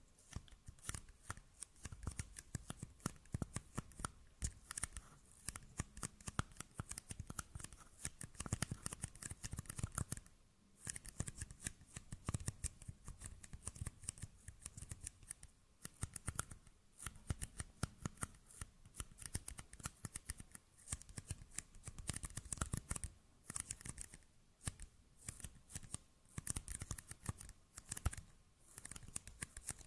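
Small plastic party cups tapped, scratched and squeezed by fingers right at the microphone: a dense, rapid run of crisp plastic clicks and crackles with a few brief pauses.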